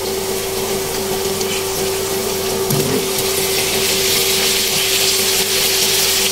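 Chopped onions and garlic sizzling in hot oil in a nonstick pan. The frying hiss grows louder a few seconds in as half-fried pork ribs go into the pan, over a steady hum.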